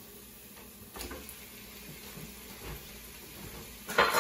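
Ground beef sizzling faintly in a skillet, with a small click about a second in. Near the end a dish clatters loudly with a brief ring.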